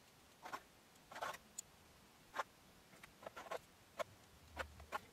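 Faint, irregular ticks and light scratches of a hot soldering iron's tip drawn around the edge of a plastic stencil, burning through fabric laid on glass.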